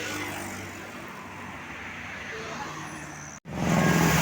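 Roadside traffic with a vehicle passing. After a sudden brief cut near the end, a much louder pitched bus sound comes in close by.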